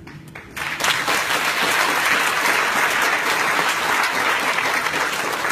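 Audience applauding, starting under a second in and holding steady.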